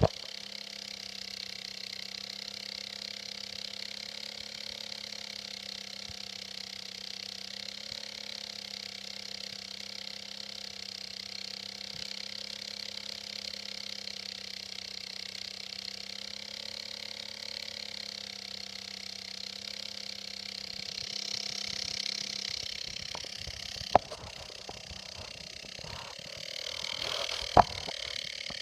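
Computer fan running with a steady hum and whir, a noise the owner links to a crashing hard drive. The low hum drops out about three quarters of the way through, and a couple of sharp knocks follow near the end.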